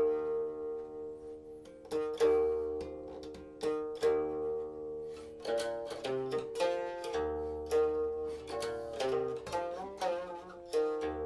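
Silk-stringed guqin played solo: single plucked notes ring out and fade, some of them sliding and wavering in pitch as the left hand moves along the string.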